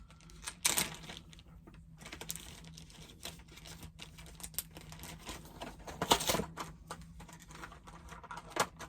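Plastic packaging being handled as an action figure is worked out of its tray: irregular clicks and crinkling, with a louder crackle near the start and another about six seconds in.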